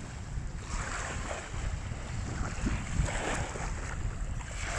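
Small waves washing in on a sandy beach in repeated surges, with wind rumbling on the microphone.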